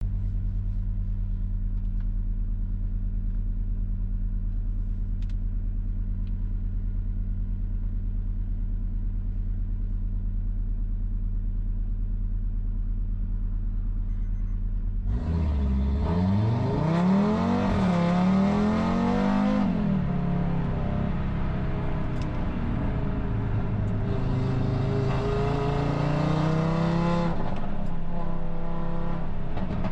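Audi RS3's turbocharged five-cylinder engine running steadily at low revs, then from about halfway accelerating hard, the revs rising and dropping through gear changes and holding high before easing off near the end.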